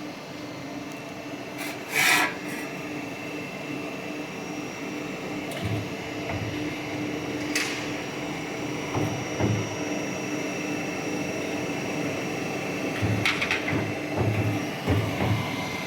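Hydraulic elbow-forming machine humming steadily, with scattered sharp clicks and low knocks and rubbing from sheet-metal duct sections being handled.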